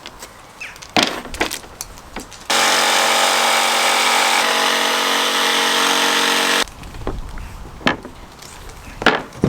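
A power tool runs steadily at one speed for about four seconds, starting and stopping abruptly. Scattered knocks and clatter come before and after it.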